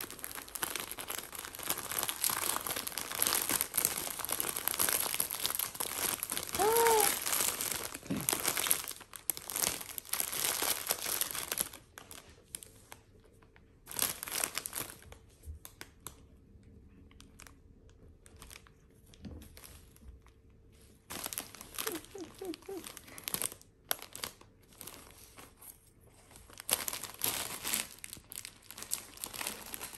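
Gift packaging crinkling and tearing as it is unwrapped: a long busy stretch first, then shorter bouts with quiet gaps between. A single short call cuts in about seven seconds in.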